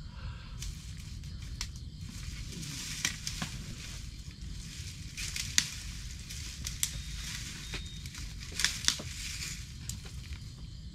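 Irregular crackling and rustling, scattered sharp clicks and short bursts of hiss, over a steady low rumble.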